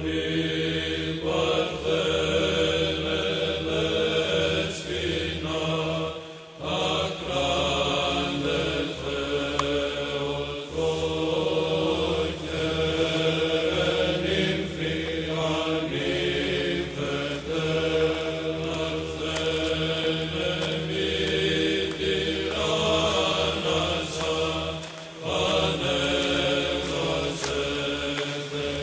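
Byzantine chant as background music: voices singing a slow melody over a steady held drone, with brief pauses about six and twenty-five seconds in.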